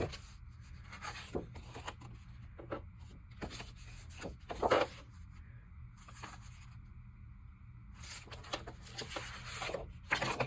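Sheets of cardstock being handled and slid against each other: soft, irregular rustles and scrapes, with a louder rustle about halfway through.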